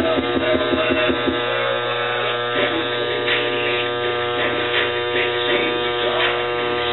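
Electric hair clippers buzzing steadily as they trim a moustache along the upper lip.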